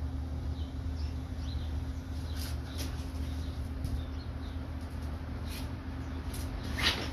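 Steady low outdoor hum with faint, short high bird chirps and a few sharp clicks. The loudest click comes near the end.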